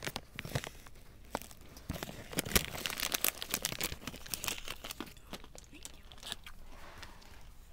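Close, irregular crackling and rustling, many sharp crackles in quick uneven succession, thickest in the first half and thinning out towards the end.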